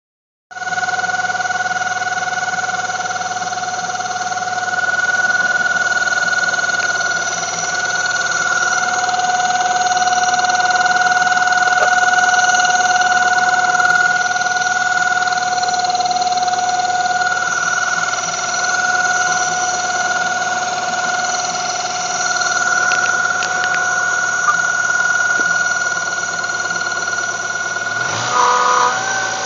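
1995 Mazda Miata's 1.8-litre four-cylinder engine idling cold with a steady high-pitched whine from the front centre of the engine, a noise that goes away once the engine has run about five minutes; the owner suspects the belt tensioner or water pump. The engine note changes briefly near the end.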